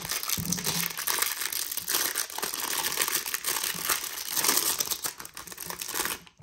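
Clear plastic wrapper of a baseball card hanger pack crinkling as it is peeled open and pulled off the stack of cards. The crackle is continuous and stops suddenly near the end.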